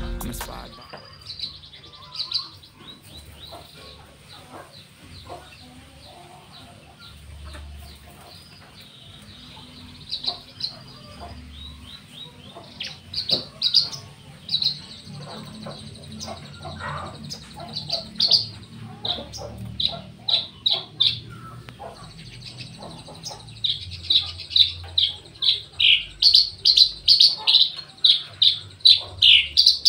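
Javan bushlark (branjangan) singing: short, high chirping notes, scattered at first, then coming thick and fast in a loud rapid run over the last few seconds.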